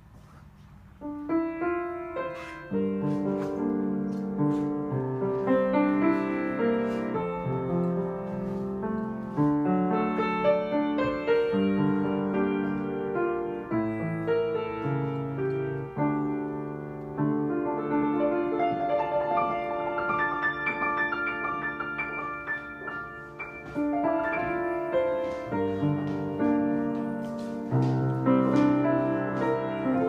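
Background piano music, a gentle run of notes and chords that comes in about a second in.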